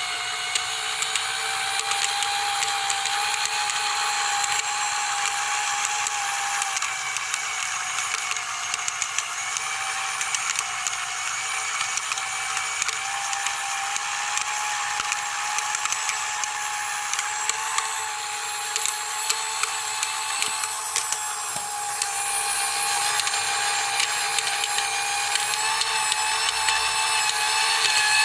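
A toy washing machine's small electric motor, overdriven on high voltage, spins at high speed with a steady high-pitched whine. Many sharp clicks and rattles sound throughout, and it gets a little louder in the last few seconds.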